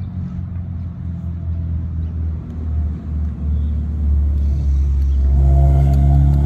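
Low rumble of a passing motor vehicle, growing louder about four seconds in, with a pitched drone on top near the end.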